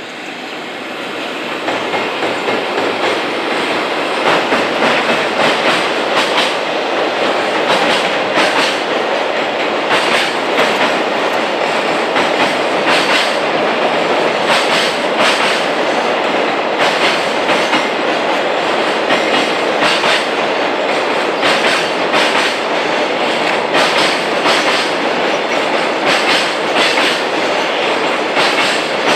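Freight train hauled by a JR Freight EF210 electric locomotive rolling slowly over a railway bridge: a steady rumble of wagons with wheels clacking over rail joints. It swells over the first couple of seconds, then holds.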